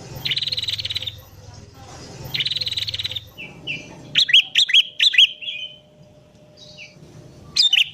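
Songbird calls from a sooty-headed bulbul song track with prinia song mixed in. Two buzzy, rapid trills come first, then a run of loud, sharp, hooked whistled notes about halfway through, and a short burst of notes near the end.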